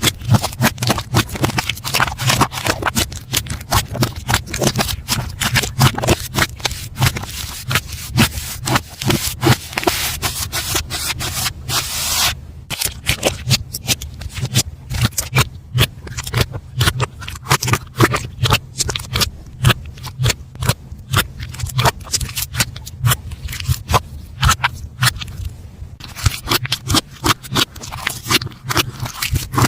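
Slime being squeezed, poked and stretched by hand: a dense, irregular run of wet clicks, pops and crackles, with a change in texture twice where one slime gives way to another.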